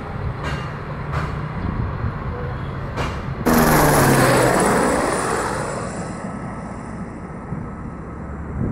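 Distant jet airliner climbing out after take-off, a steady low rumble. About three and a half seconds in, a light turbine helicopter passes close overhead, with a sudden loud rush of rotor and engine noise and a high turbine whine that slowly drops in pitch as it flies away and fades.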